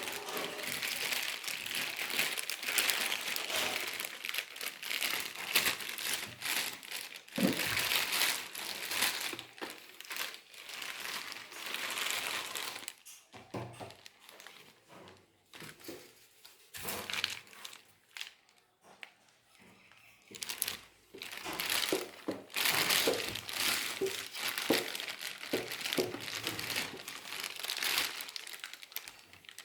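Plastic packaging around a new instant water heater crinkling and rustling as it is unwrapped by hand, in irregular bursts with a quieter stretch about halfway through.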